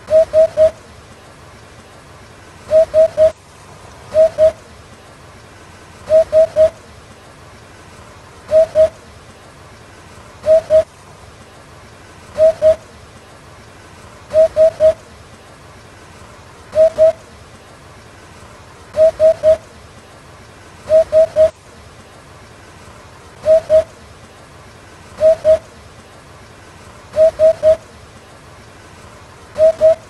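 Eurasian hoopoe calling its hooting "oop-oop-oop" song: groups of two or three low notes, repeated about every two seconds over a faint steady hiss.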